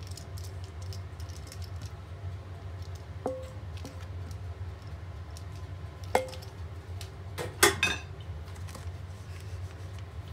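A spatula scrapes thick cake batter from a stainless steel mixing bowl into a round cake pan over a steady low hum. Single light metallic clinks come about three and about six seconds in. A quick cluster of knocks near eight seconds is the loudest, as the spatula and bowl tap against the pan.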